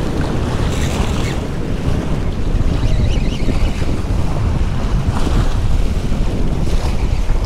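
Strong wind buffeting the microphone, a loud, steady rumble, with waves breaking and washing against the granite jetty rocks.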